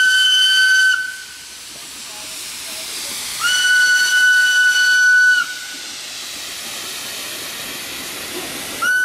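Narrow-gauge steam locomotive whistle sounding one steady high note, three blasts: a short one, a longer one of about two seconds, and another starting near the end. A steady hiss of steam and the passing train fills the gaps between.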